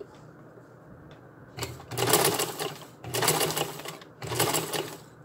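Vintage sewing machine stitching through ribbon and collar webbing in three runs with short pauses between, the first starting about a second and a half in.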